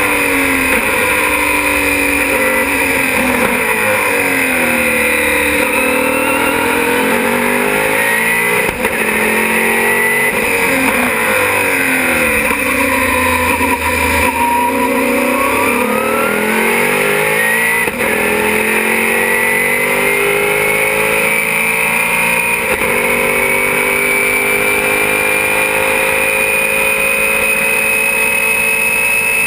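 In-cockpit sound of a Sauber-Mercedes C11's twin-turbocharged V8 at racing speed. The engine pitch falls and rises through a run of braking, downshifts and corner exits, is lowest about halfway through, then climbs through the gears and holds high and steady at full throttle near the end. A thin high whine rises and falls with it.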